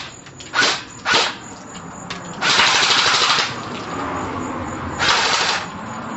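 Bursts of automatic gunfire: two short bursts, then a longer one lasting about a second, and another shorter burst about two and a half seconds later.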